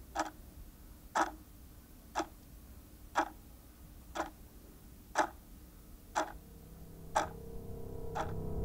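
Steady ticking, one tick a second like a clock, nine ticks in all. A faint synth drone swells in over the last two seconds or so.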